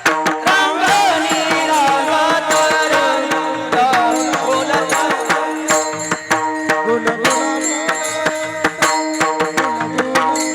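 Varkari kirtan music: rapid mridang drumming over steady held tones and a gliding melody line.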